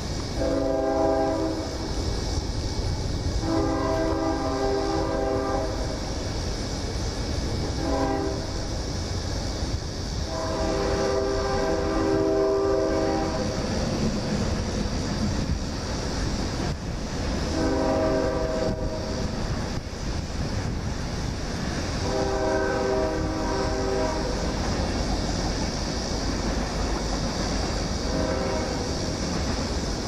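Locomotive air horn, a chord of several notes, blowing the grade-crossing signal of two long, one short and one long blast, then starting the same sequence again about halfway through. A steady low rumble runs underneath.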